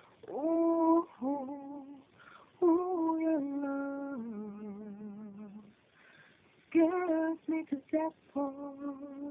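A woman singing solo with no accompaniment, holding notes with vibrato. The middle phrase is long and steps down in pitch. After a short pause about six seconds in, the singing resumes in shorter, broken phrases.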